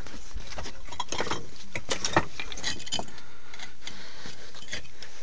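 Irregular clinking and scraping of footsteps on loose flat rock slabs, over a steady rush of wind on the microphone.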